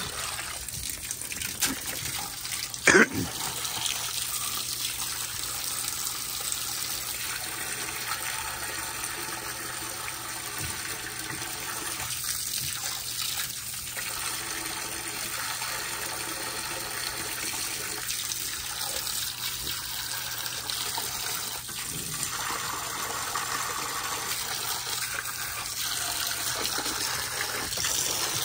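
Water running and trickling steadily, with one brief sharp sound about three seconds in.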